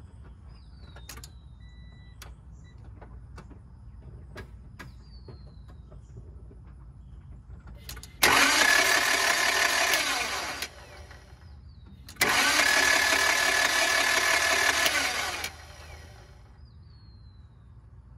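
Starter motor cranking a Honda H23A1 2.3-litre four-cylinder engine in two bursts, about two and a half seconds starting some eight seconds in, then about three seconds starting twelve seconds in. The engine turns over but never fires, because no spark reaches the plugs, a fault the owner puts down to a bad distributor.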